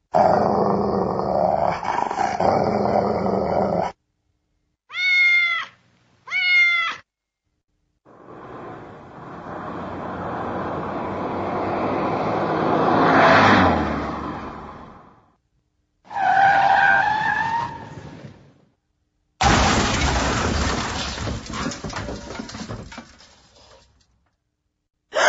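A string of cartoon sound effects: a dog snarling for about four seconds, two cat meows, a car approaching and passing, a tyre screech, then a car crash with a long fading crunch.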